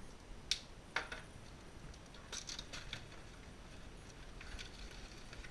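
Cardboard and plastic toy packaging being handled while a box is opened: two sharp clicks about half a second apart, then crinkling and rustling.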